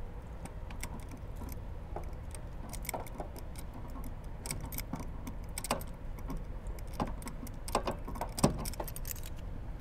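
Locking pliers clamped on a water heater's plastic drain plug as it is worked loose: scattered clicks and ticks of the metal jaws on the plug, with one sharper click about three quarters of the way through.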